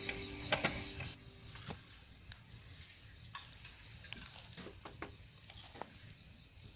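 A wood fire crackling faintly, with scattered small pops. Guitar music fades out in the first second.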